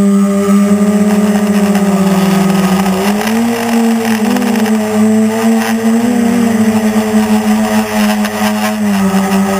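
Quadcopter's four brushless motors and propellers buzzing steadily, heard up close from a camera on the frame. The pitch dips slightly about two seconds in, then rises and wavers a few times as the craft climbs.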